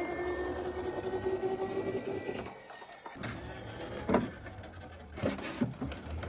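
Toy ambulance mini car: a steady mechanical whir with a held tone for about two and a half seconds, which sags slightly in pitch and then fades. Scattered plastic clicks and knocks follow.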